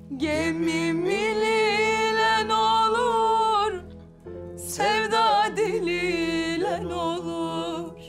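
A singer performing a Turkish Black Sea folk song in two long, wavering held notes with ornamented turns, with a short break about four seconds in. A low steady drone sounds underneath.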